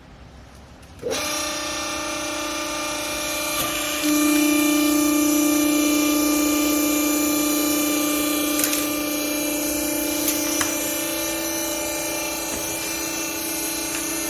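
Hydraulic clothes baler's pump motor starting about a second in and running with a steady whine, louder for several seconds in the middle.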